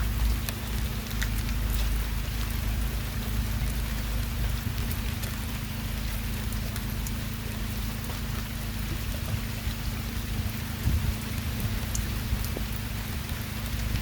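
Steady rain falling, over a constant low hum, with a couple of light clicks near the end.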